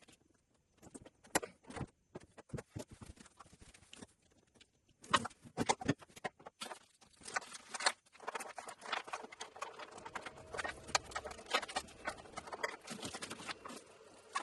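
Irregular clicks, knocks and rattles of hands working on plastic and metal parts, sparse at first and growing busier and more continuous about halfway through.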